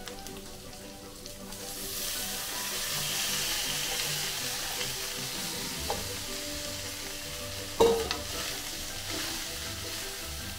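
Diced potatoes sizzling in oil in a black kadhai; the sizzle grows louder about two seconds in. Sago pearls are tipped into the pan and stirred in with a steel spoon, which scrapes the pan and strikes it with a sharp clink about eight seconds in.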